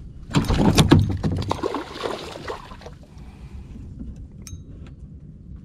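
Splashing and a clatter of knocks as a small pike is handled and dropped back into the water against the side of a plastic kayak, loudest in the first two seconds, then only a few light clicks.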